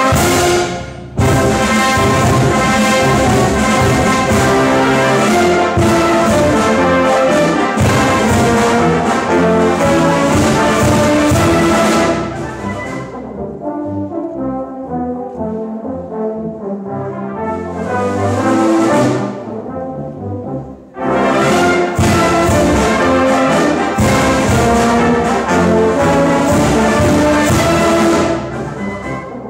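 A full brass band of cornets, horns, euphoniums, trombones and tubas playing a concert piece live. It plays loudly, with a short break about a second in, then drops to a softer passage about twelve seconds in with a brief swell in the middle. It comes back loud about twenty-two seconds in and eases off near the end.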